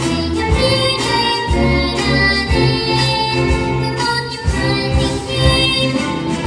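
Upbeat children's song with a steady beat, bells and singing.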